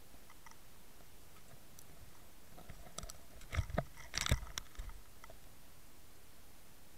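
Heard underwater, a two-second flurry of sharp clicks, knocks and crunches from fish feeding among bait and gravel on the riverbed right at the camera, starting a little before halfway through.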